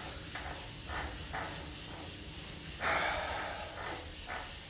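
A man breathing audibly close to the microphone during a pause, with a louder exhale about three seconds in.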